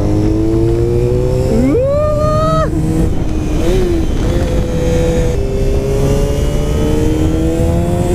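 Honda VFR400's V4 engine, which has gear-driven cams, pulling under acceleration. Its pitch climbs steadily, with a quick higher rise and drop about two seconds in and a gear change about five seconds in, after which it climbs again.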